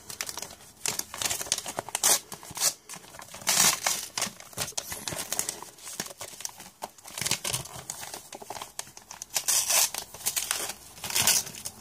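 Wrapping being opened by hand: paper crinkling and rustling in irregular bursts, with some tearing.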